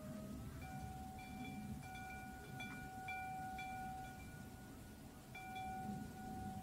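Metal tube wind chimes ringing in the breeze: the striker taps the tubes about every half second, and their clear, overlapping tones hang on between strikes.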